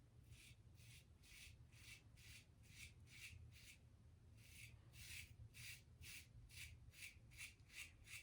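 Vintage Gillette Tech safety razor with a 3D-printed base plate shaving through stubble: short, faint, scratchy strokes repeating about two to three times a second, with a brief pause near the middle.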